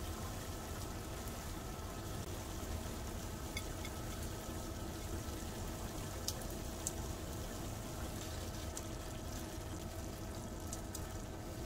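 Steady kitchen background noise, an even hiss with a faint hum, with a couple of light clicks about six and seven seconds in, likely from hands handling things at the counter.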